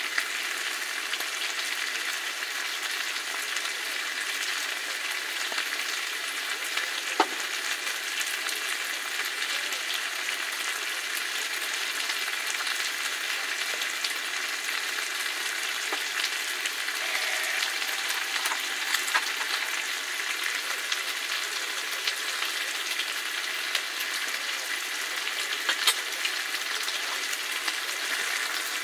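Food frying in a pan over a camp stove: a steady sizzle full of fine crackles, with a couple of sharper pops.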